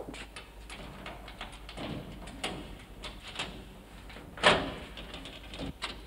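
Footsteps and small knocks as people move through a room, with one loud door clank and a short ringing tail about four and a half seconds in.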